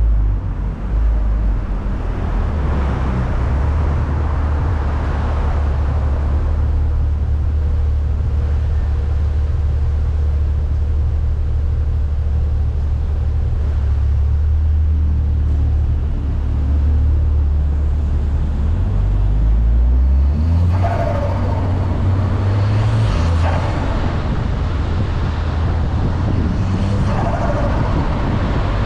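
MK6 VW Golf R's turbocharged 2.0-litre four-cylinder engine under way, a low steady drone that climbs in pitch as the car accelerates about halfway through. Then come two bursts of turbo flutter on lift-off, about two-thirds in and near the end.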